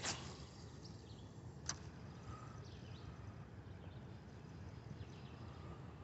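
A cast with a spinning rod and reel: a short swish right at the start, then a single sharp click about a second and a half later, over a faint steady outdoor background with faint high chirps.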